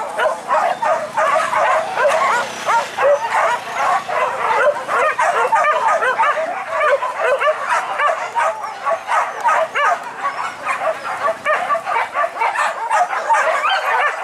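A pack of leashed hunting dogs yelping and barking excitedly together, many high yelps and whines overlapping without a break.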